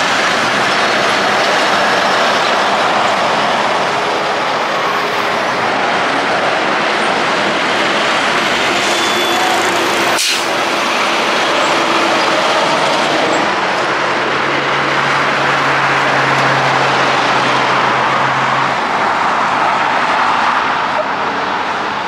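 Heavy trucks driving slowly past close by: diesel engines running over steady tyre and road noise, with a low steady engine hum for a few seconds past the middle.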